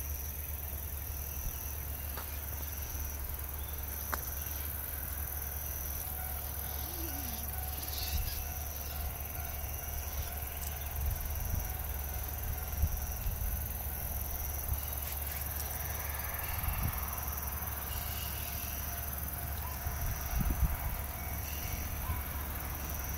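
Open-air rural ambience: a steady high-pitched chirring with short breaks every second or two, over a low rumble that swells a few times, with a faint short call now and then.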